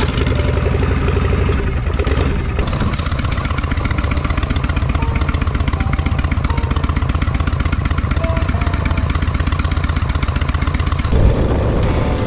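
Harley-Davidson Shovelhead V-twin motorcycle engine running with a rapid, even firing rhythm; a little past eleven seconds in it briefly gets louder and the sound changes.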